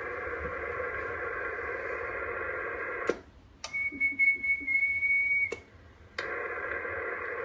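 CB radio receiver hiss from the speaker, broken by sharp relay clicks as the mic is keyed on SSB through a Zetagi B300P linear amplifier. While keyed, the hiss drops out and a steady high whistle sounds for under two seconds. Then it unkeys with another click, and the hiss returns a little later.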